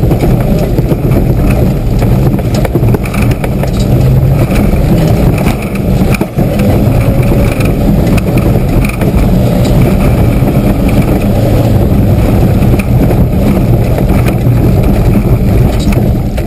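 Mitsubishi 4x4's engine running hard under load as it is driven over a rough, muddy off-road track, heard from inside the cab along with road and body noise. The engine note eases briefly about six seconds in.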